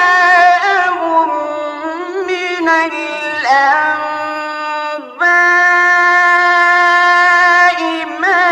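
Male Quran reciter's voice in the melodic mujawwad style, drawing out a phrase in rapid ornamented turns. About five seconds in there is a brief break for breath, then a long high held note before the ornaments start again.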